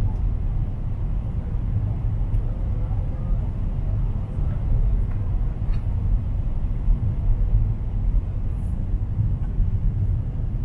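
Steady cabin noise inside a Boeing 777-300ER airliner in flight: a low, even rumble of engines and airflow, with a faint high steady whine above it.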